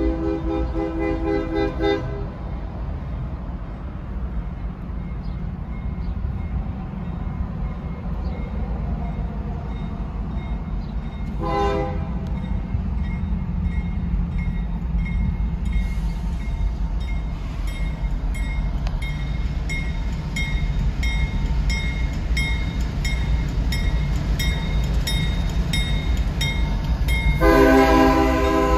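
Diesel locomotive's multi-tone air horn blowing for a grade crossing: a blast that ends about two seconds in, a short toot around twelve seconds, and a long, loud blast starting a little over a second before the end. Underneath is a steady low rumble, with the crossing bell dinging in an even rhythm through the middle.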